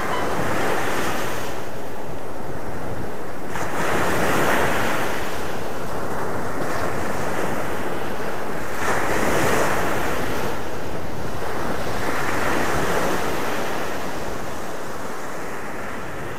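Sea waves breaking and washing up a sandy beach. The surf swells four times, a few seconds apart, and fades out near the end.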